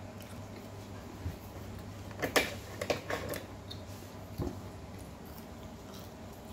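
Someone chewing kubos, an Arabic flatbread gone cold and chewy, with a few short mouth clicks and smacks a little over two seconds in, more near three seconds and once near four and a half seconds, over a steady low hum.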